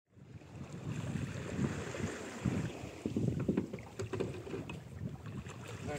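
Wind gusting on the microphone over the wash of choppy sea against a wooden fishing boat's hull, with a few faint knocks.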